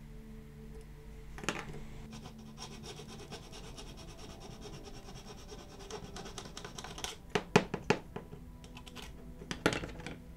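A thin wooden stick scratches and rubs baking soda into a superglued hairline crack on a bare diecast metal car body. Three sharp taps come just past the middle and one more near the end, over faint background music.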